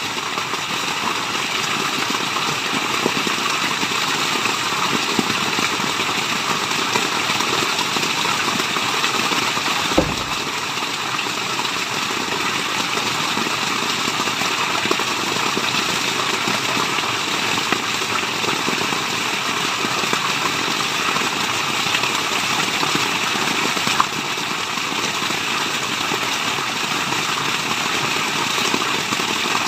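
Waterfall: a steady rush of falling water, with a brief low thump about ten seconds in.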